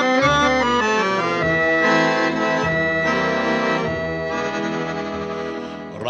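Instrumental break of a song, led by an accordion: a quick run of notes, then held chords that fade a little toward the end.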